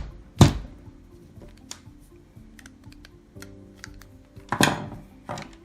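Screwdriver prying at the glued plastic shell of an Apple 45W MagSafe 2 power adapter: sharp cracks and clicks of plastic giving way, two loud ones at the start and another cluster near the end, with lighter ticks between. Background music plays throughout.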